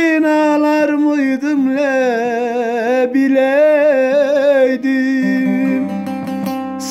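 A man singing a long, ornamented vocal line with a wavering vibrato, accompanied by a plucked bağlama (long-necked saz). The voice drops out about five seconds in, leaving the bağlama's ringing notes and a few plucks.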